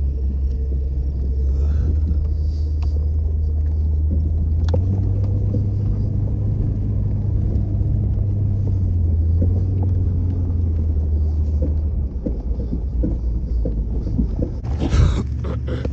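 Jeep engine and drivetrain rumbling low and steady, heard from inside the cab while driving slowly over rough grassy ground. The engine note rises a little about five seconds in and drops away about twelve seconds in. A brief loud burst of noise comes near the end.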